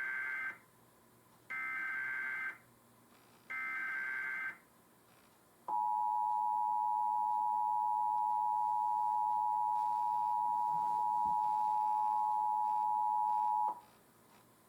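Emergency Alert System header tones: three short bursts of screechy digital data tones, about a second each, followed by the two-tone attention signal (853 and 960 Hz together) held steady for about eight seconds, then cutting off. This is the start of a national periodic test alert.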